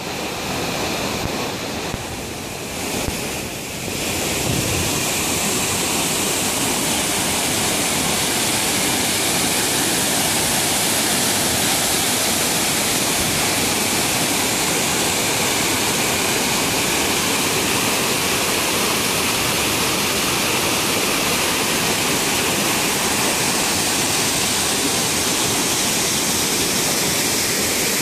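Mountain waterfall plunging down a narrow rock gorge: a steady, loud rush of falling water, a little softer for the first few seconds and then constant.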